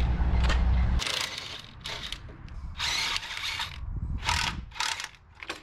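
Cordless impact wrench working on rusty front-suspension bolts. It runs steadily for about the first second, then fires in several short bursts.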